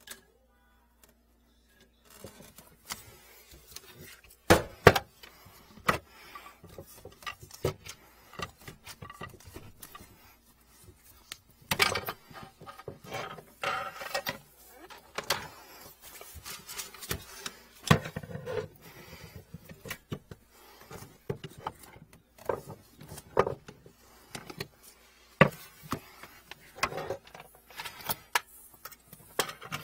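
Irregular knocks, clicks and rubbing from hands working under a kitchen sink around its corrugated drain hose, starting about two seconds in.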